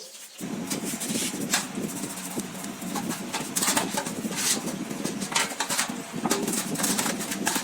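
A motor starts up about half a second in and runs steadily, with rapid clicking and rattling over it.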